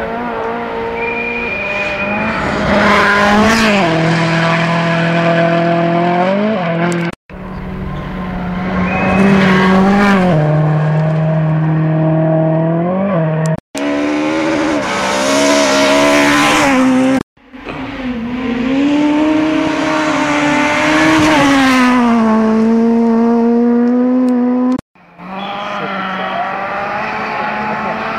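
Rally cars on a gravel stage at full throttle, engines revving high, the pitch climbing and dropping as they shift gears and come closer. Several separate cars in short clips, each cut off abruptly.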